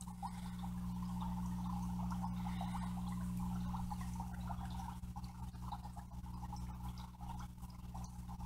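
Aquarium air stones bubbling in a fish tank: a dense crackle of small bubble pops over a steady low hum.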